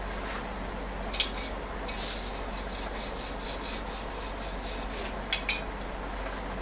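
Harris 50-3 oxy-acetylene welding torch flame hissing steadily while welding thin aluminum, with a few light clicks and a brief louder scrape about two seconds in.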